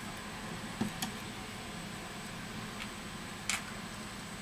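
Three faint, short clicks of small parts being handled and set into the open frame of a Samsung Galaxy S8, over a steady low hiss of room noise.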